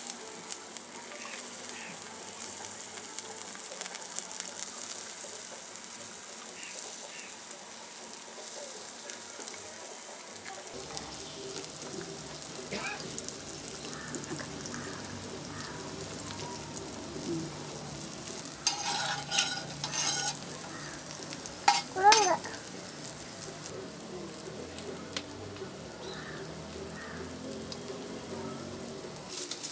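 Masala-coated raw plantain slices sizzling in oil on a wide shallow iron pan, a steady frying hiss. About eleven seconds in the sound turns fuller and lower, and a few brief louder sounds come later on.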